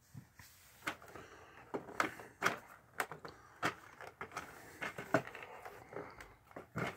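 Irregular clicks and taps of hands handling a cardboard toy display board and the small plastic toys mounted on it.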